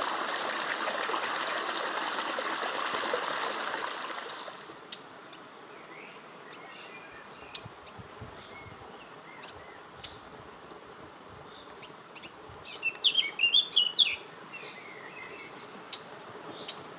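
A stream rushing steadily, cutting off suddenly about four and a half seconds in. Then quiet outdoor ambience with scattered bird chirps and a quick burst of loud chirping about thirteen seconds in.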